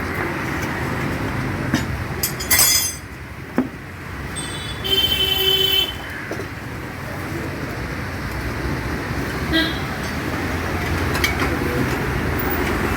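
Steady road traffic rumbling past, with a vehicle horn tooting briefly twice, about two and a half and five seconds in.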